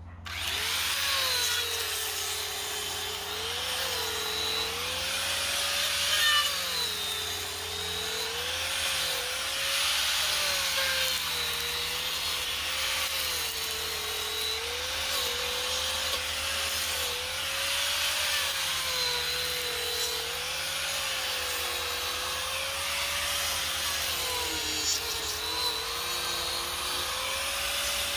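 Angle grinder fitted with a Manpa toothed carving cutter, switched on and cutting into wood. The motor's whine sags and recovers again and again as the cutter bites and eases off, over a steady grinding rasp.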